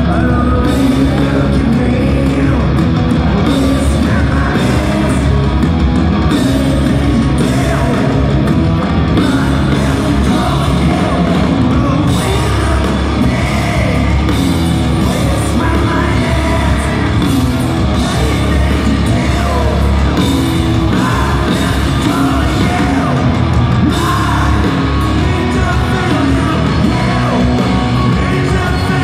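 Live rock band playing loud, heard from the audience through the hall's sound system: distorted electric guitars, bass and drums with a singer half-singing, half-shouting.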